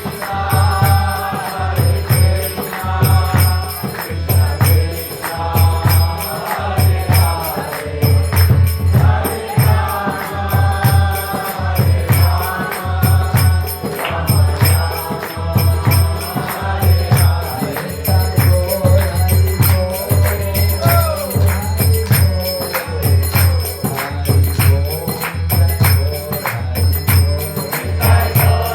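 Devotional kirtan: a melodic singing voice over a steady low drum beat about once a second, with jingling hand cymbals.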